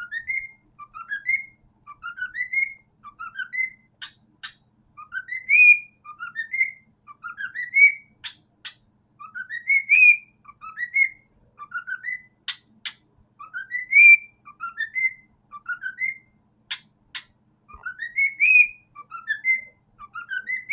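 Cockatiel whistling its song: short rising whistle notes, mostly in pairs, repeated over and over and broken by sharp chirps.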